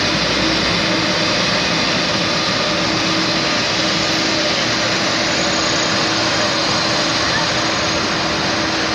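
Boeing 747's four jet engines running at taxi power as the airliner turns on the runway: a loud, steady rush with a steady hum and a thin high whine.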